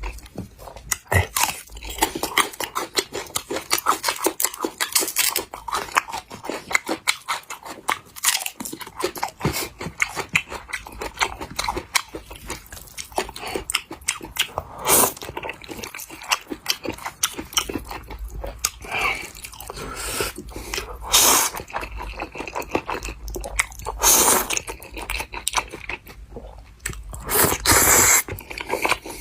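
A person eating noodles close to the microphone: steady wet chewing and biting with crunchy bites, and a few louder bursts near the middle and end.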